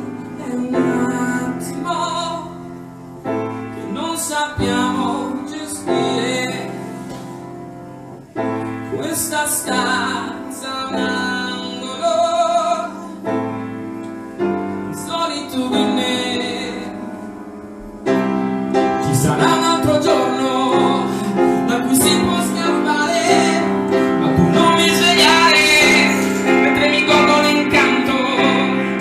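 Live song performed with grand piano accompaniment and singing. It grows suddenly louder and fuller about eighteen seconds in.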